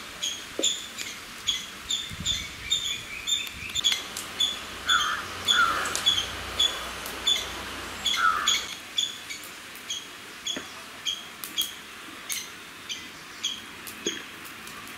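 A small animal's short, high chirp repeated steadily, about two to three times a second, with a few lower calls a few seconds in.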